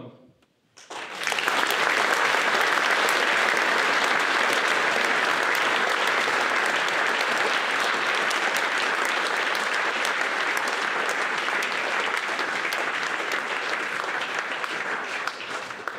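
Audience applauding: after about a second of quiet, many people start clapping together and keep up steady applause, which eases off a little near the end.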